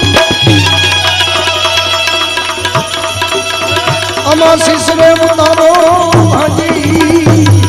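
Gujarati devotional folk music, an instrumental passage: tabla keeping a steady rhythm under held, gently wavering melodic lines.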